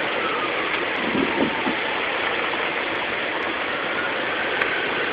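A steady rushing noise, with a distant ambulance siren wailing faintly behind it, its pitch sliding down in the first second or so and climbing again near the end.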